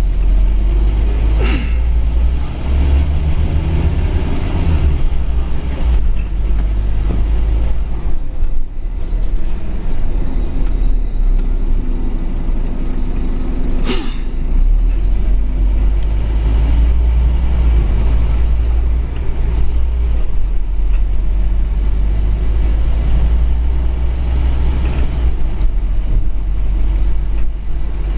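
Scania N230UD OmniCity double-decker bus heard from inside while driving: its five-cylinder diesel gives a steady low rumble, heavier for a few seconds early on. Two short sharp hisses cut through, about a second and a half in and again about fourteen seconds in.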